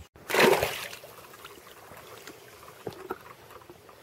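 A short burst of rushing noise about half a second in, then river water lapping quietly with small faint knocks against the side of an inflatable boat.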